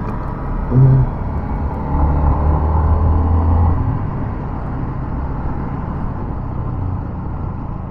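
Motor vehicle on the road: a steady low engine and road rumble, with a short, louder sound about a second in and a stronger low engine drone between about two and four seconds in.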